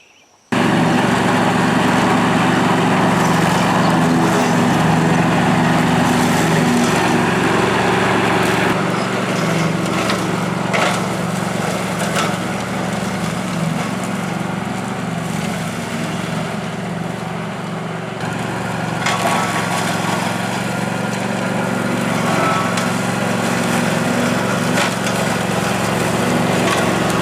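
Engine running steadily, starting abruptly about half a second in, with a few sharp knocks now and then.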